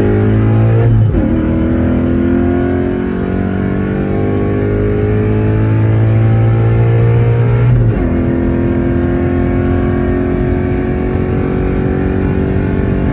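2018 Mustang GT's 5.0-litre V8 with catless long-tube headers pulling hard under acceleration, its note climbing steadily in pitch. Twice, about a second in and again about eight seconds in, the pitch drops sharply at an upshift before climbing again.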